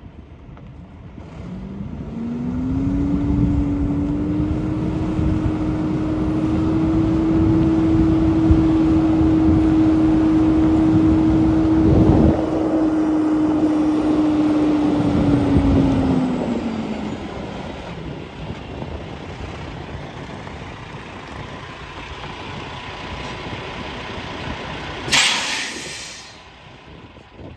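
Peterbilt 386 truck tractor's diesel engine pulling along, its tone rising about two seconds in, holding steady, then dropping away as the truck slows, with a single knock partway through. Near the end comes a short, sharp hiss of air brakes as the truck stops.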